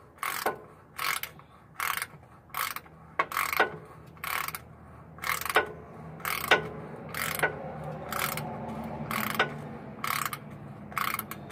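Socket ratchet wrench clicking in repeated short strokes, about one to two a second, as a bolt is worked loose on a truck's starter.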